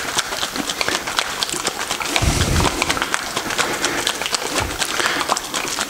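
A can of two-component (2K) expanding foam being shaken hard by hand, making a fast clattering rattle of clicks, with a dull low thump a little over two seconds in and another near the end. The shaking mixes the activated foam before it is sprayed.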